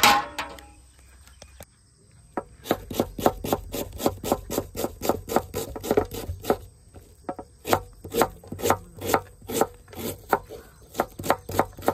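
A sharp knock at the very start, then a knife chopping a red onion on a wooden board: quick, even cuts about four a second, each stroke knocking the blade onto the wood, with a couple of short pauses.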